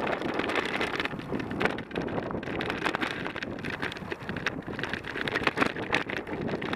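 Scooter on knobby tyres riding over rough ground: a steady jumble of tyre crunch and rattling knocks, with wind buffeting the microphone.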